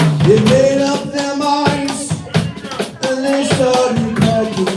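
Live band music: long held melody notes, gliding up into pitch, over a drum kit's beat.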